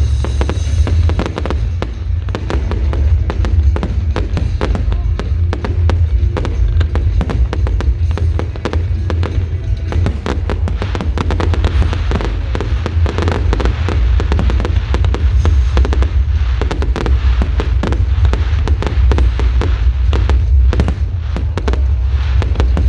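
Fireworks display going off continuously: dense, rapid bangs and crackles of bursting shells over a heavy, steady low rumble, with music playing underneath.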